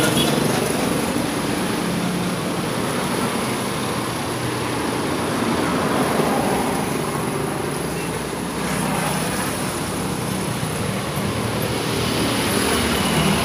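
Street traffic going by: motor tricycles and cars pass on the road in a steady engine drone that swells briefly as vehicles come close.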